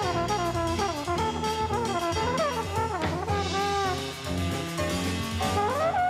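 Jazz soundtrack: brass horns play a sliding, bending melody over bass and drums.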